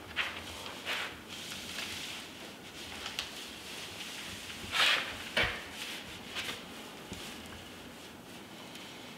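Hand pressing and smoothing Tyvek house wrap flat onto a bead of sealant at the bottom of a window opening: intermittent papery rustles and rubs, the loudest about five seconds in, followed by a dull knock.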